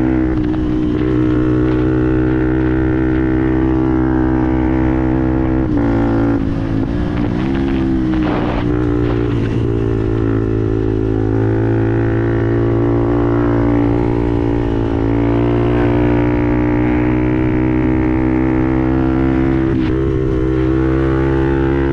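Fantic Performance 125 Motard's single-cylinder four-stroke engine running through a GPR aftermarket exhaust at a mostly steady pitch. The note dips and wavers about six to nine seconds in, and dips briefly again near the end.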